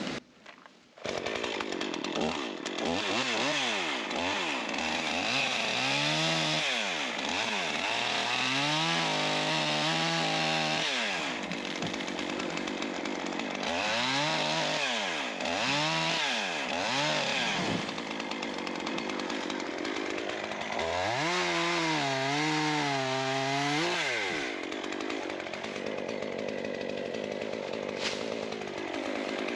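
Small Stihl chainsaw cutting through a fallen tree trunk, its engine pitch repeatedly sagging as the chain loads up in the cut and rising again. It starts about a second in.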